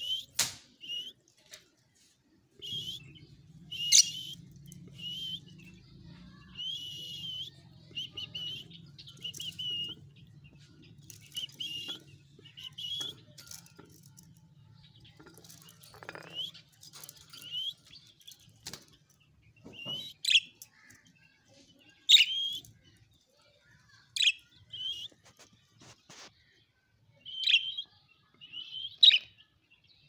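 Budgerigars chirping in short, sharp calls repeated every second or so, with a few louder calls spread through the second half. A low steady hum sits underneath from about three seconds in until a little past the middle.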